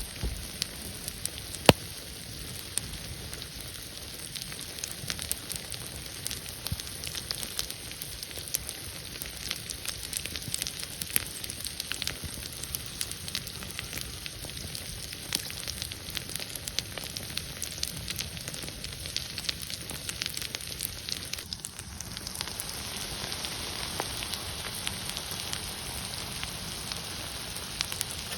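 Food sizzling in a frying pan over a campfire, with many small crackles and pops; one sharp pop near the start is the loudest. About three-quarters of the way through, the sound cuts to a brighter, steadier hiss.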